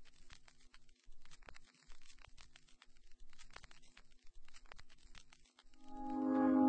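Faint irregular crackling and clicking over a faint low hum. Near the end, music swells in with a held chord.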